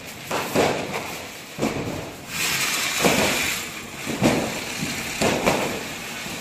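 Diwali firecrackers going off in repeated sharp bangs, about one every second, and from about two seconds in a ground firecracker hissing as it sprays sparks.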